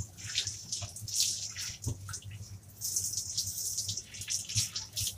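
Water spraying from a handheld shower head onto a dog's coat, the spray hissing and splashing unevenly as it moves over the fur.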